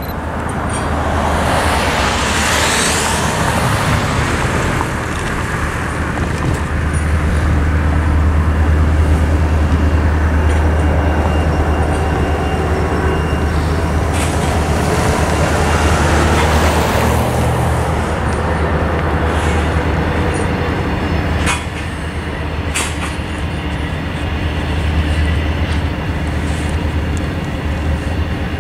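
Cars driving through the crossing: one passes a couple of seconds in and an SUV about a quarter of a minute in, each swelling and fading, over a steady low rumble, with a couple of sharp ticks later on.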